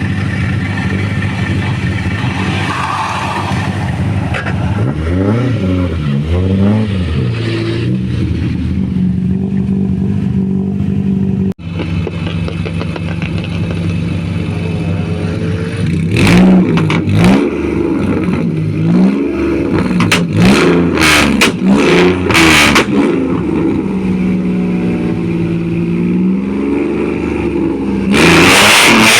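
Rally car engines at the start line idling and being revved repeatedly, with a run of sharp cracks during the revving; near the end a car launches with a sudden loud surge of engine and tyre noise.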